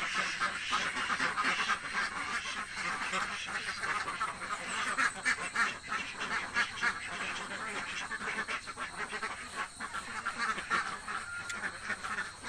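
A flock of domestic ducks quacking continuously, many short calls overlapping with no pause. The uploader takes this for hungry ducks calling.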